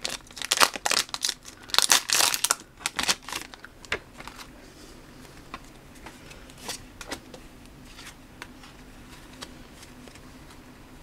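Foil booster-pack wrapper crinkling and tearing as it is ripped open, for about the first three and a half seconds. After that come faint, scattered clicks as the trading cards are handled, over a low steady hum.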